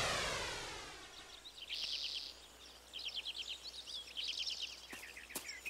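A transition sound effect's ringing, sweeping tail fades out over the first second. Then birds chirp in short, rapid high trills, three bursts about a second apart, over faint forest ambience.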